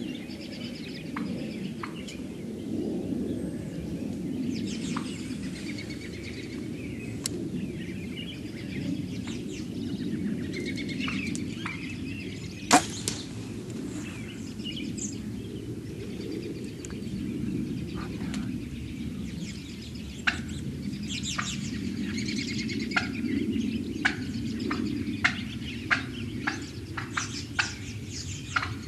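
Woodland sound around a flock of wild turkeys: faint bird chirps over a steady low rumble, one loud sharp crack about halfway through, and short sharp clicks coming about once a second in the last third.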